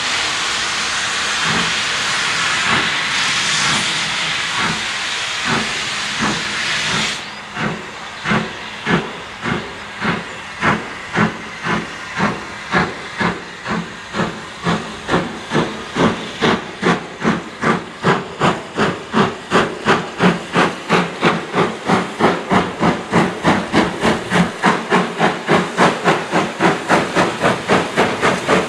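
L&YR Class 27 0-6-0 steam locomotive No. 12322 starting a train. A steady hiss of steam cuts off about seven seconds in, then its exhaust beats quicken from about one a second to about two and a half a second as it gathers speed.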